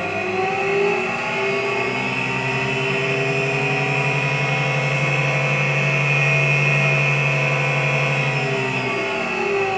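Alzmetall Alztronic 9 bench drill press running under power with a steady motor and spindle whine; near the end the pitch falls as the speed changes.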